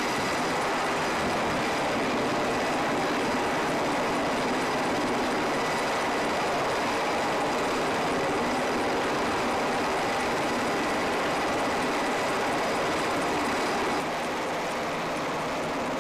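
Navy Seahawk helicopter running on deck with its rotor turning: a steady turbine whine over dense rotor and engine noise. About two seconds before the end it gets a little quieter and the high whine stops.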